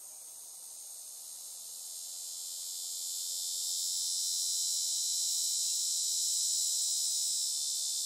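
Cicadas droning in a high-pitched, steady buzz that swells over the first few seconds and then holds loud.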